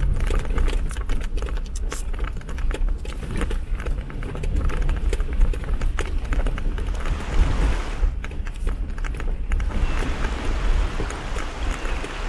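Jeep Wrangler driving over rough ground: a low engine rumble under many irregular clicks and knocks from the track. From about ten seconds in, a steady hiss joins in.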